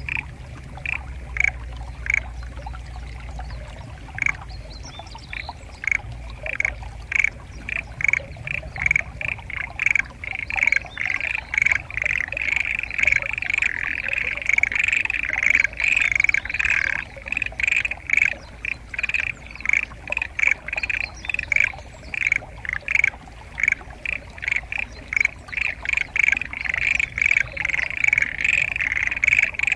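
A chorus of frogs in flooded rice paddies, which the recordist takes mainly for black-spotted pond frogs (tonosama-gaeru). The frogs are starting up again: scattered calls at first thicken into a dense, continuous chorus after about ten seconds. A low rumble fades away over the first few seconds.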